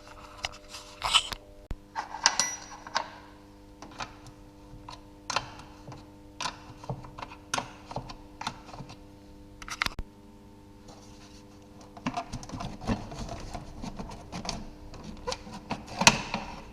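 Irregular clicks and knocks from hand tools and plastic engine-bay parts as an air intake is unscrewed and a timing-belt cover taken off a VAZ 2108/2109 engine. The clicks come thickest near the end, over a faint steady hum.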